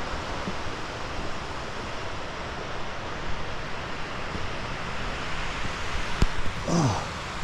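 Lake Michigan waves breaking and wind blowing in a snowstorm, a steady rushing noise. A sharp click comes a little after six seconds, and a short cry falling in pitch near the end.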